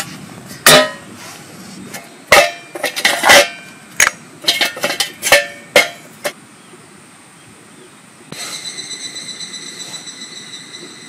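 Stainless steel camp stove parts and an alcohol burner clanking and clinking as they are set down and fitted together on a wooden board, a dozen or so sharp metallic knocks, some ringing briefly. About eight seconds in, a steady high pulsing drone of several tones begins.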